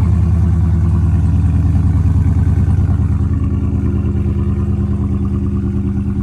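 Dodge Charger Scat Pack's 392 (6.4-litre) HEMI V8 idling through its exhaust just after a cold start: a steady, deep, loud idle that slowly gets a little quieter as it settles.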